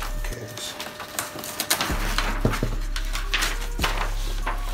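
Handling noises from unpacking a computer monitor: a scattered series of light knocks and clicks as the panel is moved on the table, with rustling of its packaging between them.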